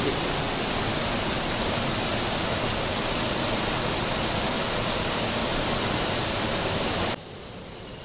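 Fast, rocky river rushing below a footbridge, a steady loud noise of water; about seven seconds in it cuts off abruptly to a much fainter hiss.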